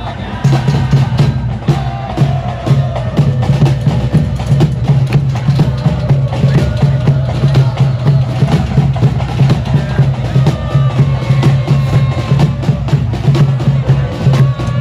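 Football supporters in the stands beating a bass drum in a steady fast rhythm while a crowd of voices chants along in unison.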